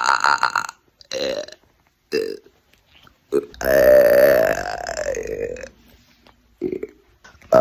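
A person burping on command, one burp after another. A loud burp ends just under a second in, a few short ones follow, then one long drawn-out burp of about two seconds with a wavering pitch, another short one, and a loud burp starting at the very end.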